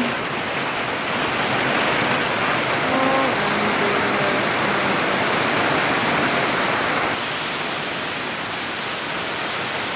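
Heavy tropical downpour: a steady, dense hiss of rain that eases a little about seven seconds in.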